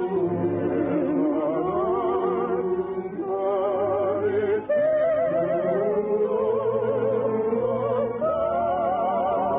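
Operetta music: orchestra playing a melody with wide vibrato that moves in phrases. The sound is thin, with no highs, as in an old broadcast recording.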